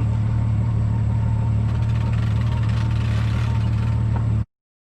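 Bass boat's outboard motor running steadily under way, a loud, even low hum. The sound cuts off suddenly near the end.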